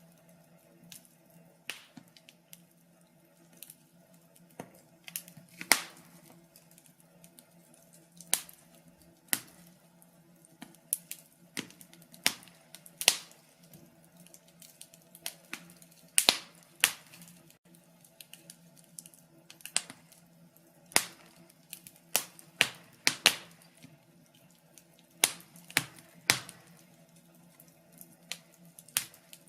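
Wood fire crackling: irregular sharp pops and snaps, some much louder than others, coming a few every second or two.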